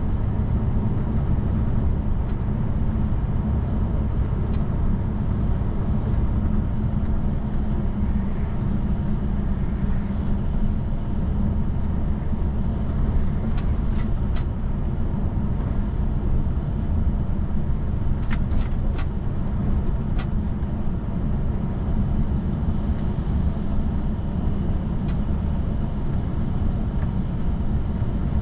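Steady low rumble of a car driving on the road, with a handful of brief ticks in the middle.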